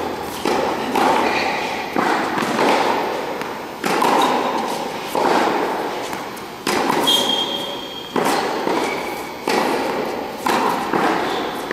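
Tennis balls struck by rackets and bouncing on a hard indoor court during a baseline groundstroke rally: a sharp pop about every second or so, each with a hall echo.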